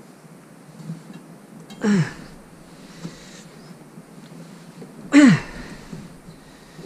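A man grunting with effort twice, short falling grunts about three seconds apart, as he forces the handles of a hand crimping tool closed on a lug for thick battery cable. The crimp needs a lot of force.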